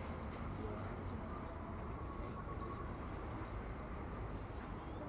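Faint outdoor background of insects and distant bird calls over a low, steady hum, with no clear dove coo.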